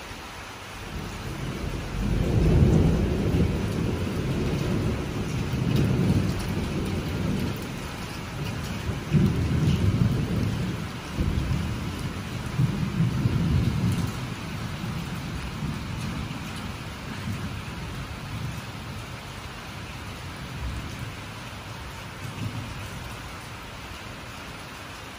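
A long roll of thunder over steady rain. The rumble builds about two seconds in, swells several times over the next dozen seconds, then slowly dies away.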